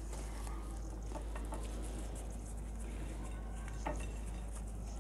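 Faint rustling and a few soft taps as a flour tortilla is folded and rolled around burrito filling in a glass dish, the clearest tap about four seconds in, over a steady low hum.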